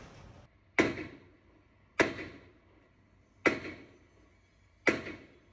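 Four sharp knocks, evenly spaced about a second and a half apart, each fading away quickly.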